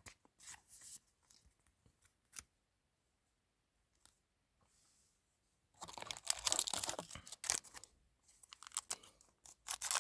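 Foil trading-card booster pack crinkling and tearing as it is opened. A few light ticks come first, then a pause, then a longer stretch of crinkling and tearing from about halfway through, with a second spell near the end.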